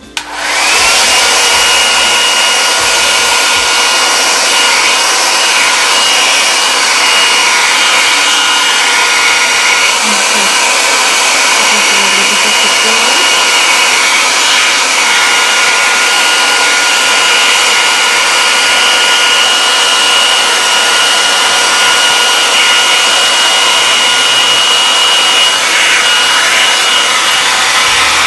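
Handheld hot-air dryer running steadily, blowing on ink-sprayed wet paper to dry it: a loud even rush of air with a steady whine. It switches on just after the start and cuts off at the very end.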